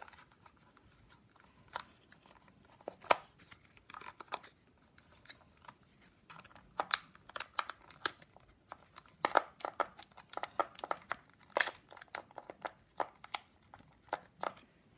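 Sharp plastic clicks and scraping as a plastic card is worked along the seam of a DJI Mavic Air's top shell to pry its clips loose. The clicks are irregular and come in clusters.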